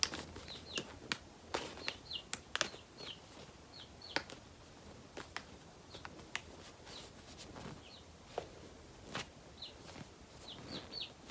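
Scattered light clicks and taps of objects being handled, with short high falling chirps repeated several times, most often near the start and near the end.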